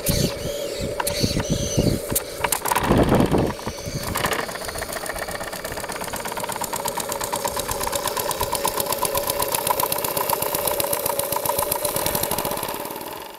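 Small model steamboat steam engine starting up: irregular chuffs and knocks with a loud burst about three seconds in, then settling into a fast, even exhaust beat.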